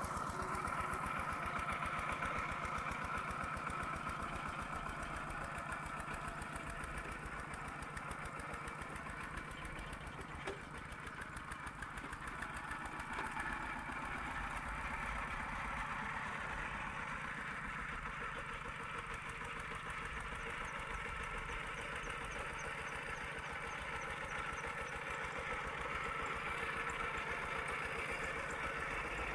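Single-cylinder Kubota RT120 diesel on a two-wheel walking tractor, running steadily while it drags a tiller through a muddy rice paddy, with a fast, even beat of firing strokes.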